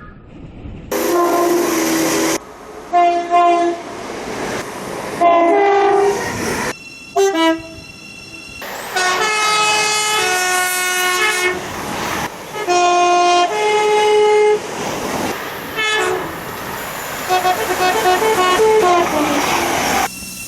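Train horns sounding a series of blasts, some long and some short toots, several stepping between a high and a low note in the classic two-tone pattern. Train running noise lies underneath, and the sound breaks off abruptly a couple of times where one recording cuts to the next.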